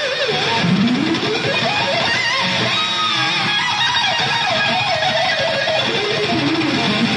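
Electric guitar solo from a cream Stratocaster-style guitar played through Marshall stacks. A single melody line climbs from low notes, wavers with wide vibrato on its high notes through the middle, and drops back to low notes near the end.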